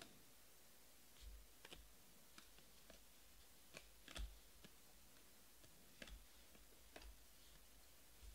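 Faint clicks and taps of a stack of trading cards being flipped through by hand, a scattered dozen or so soft snaps with the loudest about four seconds in, over near silence.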